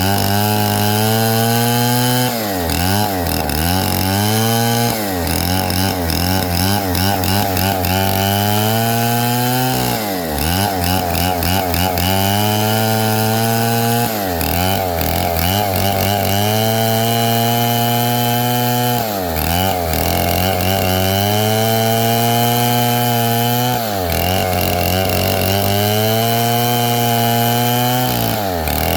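Stihl 070 two-stroke chainsaw running at high revs and cutting wood. Its pitch dips sharply and climbs back about every four to five seconds.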